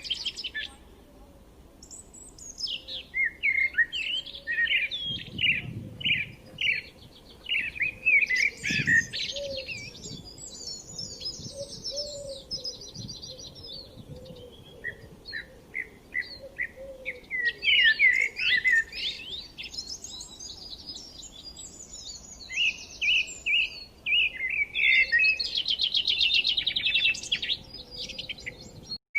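Several songbirds chirping and singing, with overlapping short whistled notes, quick sweeping phrases and, near the end, a long rapid trill.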